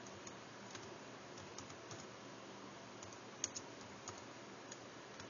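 Typing on an Acer laptop's keyboard: faint, irregular key clicks, with one sharper click about three and a half seconds in.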